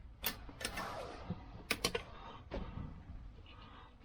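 Feeler gauge blades clicking and tapping as they are handled: about five sharp, light metal clicks in the first three seconds, two of them in quick succession near the middle.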